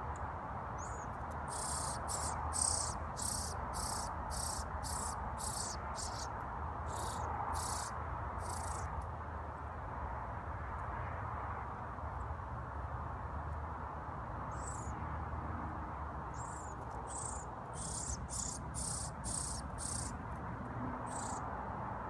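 Fledgling songbird begging: short, high-pitched calls repeated about twice a second, in two spells with a pause between, over a steady low background hum.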